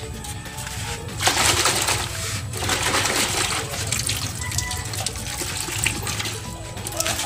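Water spraying from a garden hose nozzle onto a wet dog and splashing into a steel basin, starting about a second in, over background music.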